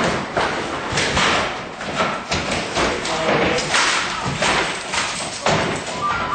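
A rapid, irregular run of thuds and bangs: blows and objects hitting desks and equipment during an office scuffle.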